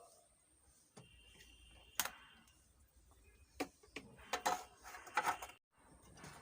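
Side cutters snipping the excess leads of freshly soldered 1N4007 diodes on an amplifier circuit board: a handful of sharp, irregularly spaced clicks and snaps.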